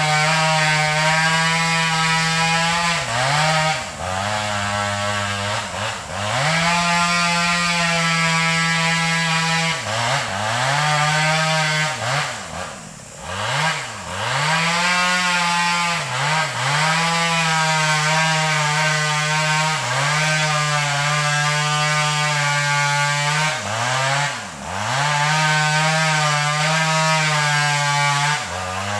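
Two-stroke chainsaw cutting into a teak trunk to fell it, held at high revs with the engine dropping in pitch and picking back up several times as the bar bogs in the cut or the throttle is eased.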